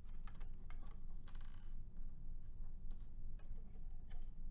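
Light metallic clicks and taps of a screwdriver and small metal parts as a PXIe module's metal front bracket is unscrewed and lifted off, with a short rattle about a second and a half in.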